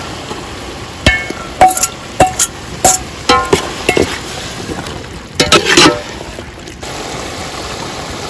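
Perforated steel ladle knocking and scraping against a large metal cooking pot while cowpeas are stirred into a simmering masala. There is a run of about a dozen ringing clanks between about one and six seconds in, over a steady hiss of the cooking.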